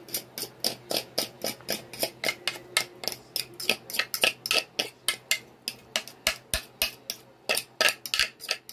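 A fork scraping and tapping against the inside of a mixing bowl, short quick clicks about three or four a second, as cornbread batter is scraped out into a baking dish.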